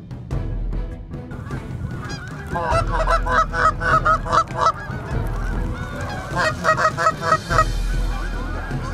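A flock of Canada geese honking, many calls overlapping, in two bouts: the first starting about two and a half seconds in, a shorter second one about six seconds in.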